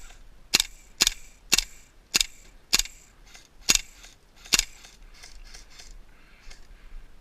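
KWA LM4 gas blowback airsoft rifle firing semi-auto: seven sharp shots, spaced about half a second to a second apart. Fainter snaps follow over the last couple of seconds.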